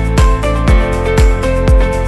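Background music with a steady kick-drum beat, about two beats a second, under a melody of held notes.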